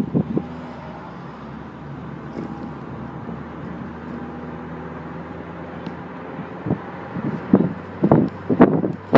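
Car running, heard from inside the cabin as a steady low hum. From about two-thirds of the way in there is a run of sharp knocks, loudest near the end.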